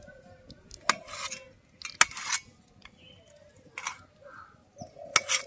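A kitchen knife cutting paneer into cubes on a stainless steel plate. The blade taps the steel about four times, each tap followed by a brief scrape.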